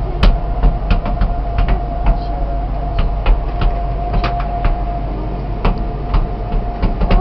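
Ferris wheel running, heard from inside its gondola: a steady low rumble with a faint steady hum, and irregular sharp clicks and knocks, a few a second.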